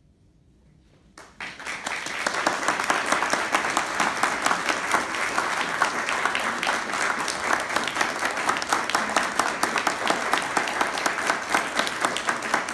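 Near silence for about a second, then an audience suddenly breaks into applause, many hands clapping steadily.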